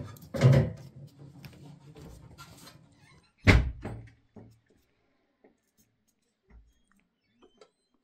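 Two dull thumps about three seconds apart, the second the sharper, amid the handling of carrots and a knife over a metal pan, then a few faint clicks of knife work.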